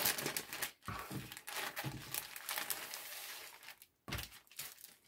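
Clear plastic bag crinkling and rustling as it is opened and a folded T-shirt is pulled out of it, with a thud about four seconds in.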